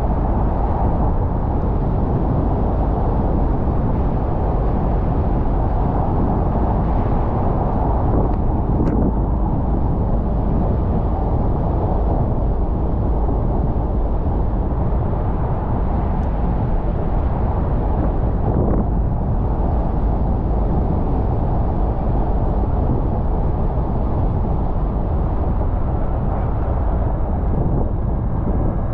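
Car driving on rain-wet city streets: steady road and tyre noise, heaviest in the low end.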